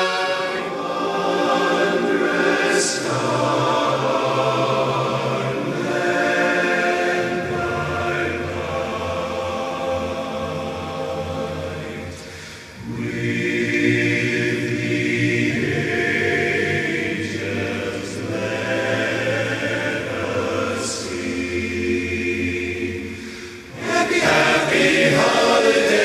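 Men's barbershop chorus singing a Christmas song a cappella in sustained close-harmony chords, with short breaks between phrases about halfway through and near the end.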